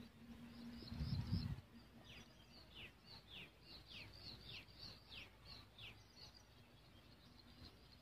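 A bird calling a quick series of about ten short, high, downward-sliding notes, roughly two a second, through the middle of the clip, with fainter chirps before them. A brief low rumble on the microphone about a second in is the loudest sound, over a faint steady low hum.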